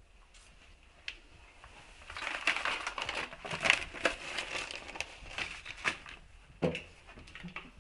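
Paper being crumpled and handled in the hands: a dense crackling that starts about two seconds in and lasts about four seconds, followed by a few lighter rustles and a soft thump near the end.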